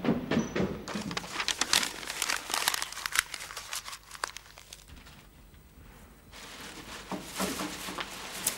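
Paper crinkling and rustling in quick, irregular bursts, pausing for about a second after five seconds, then starting again.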